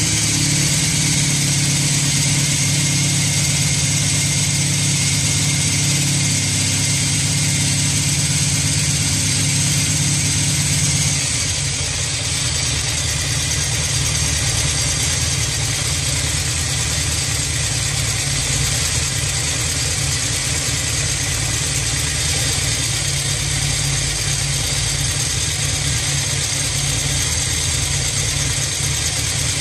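Jawa 500 OHC motorcycle engine, with a bevel-shaft-driven overhead camshaft, idling steadily. About eleven seconds in, its low hum changes and the sound gets slightly quieter.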